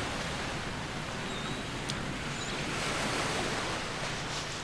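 Steady wind and water noise aboard a sailing yacht under way: an even rushing hiss of wind and waves, with a faint tick about two seconds in.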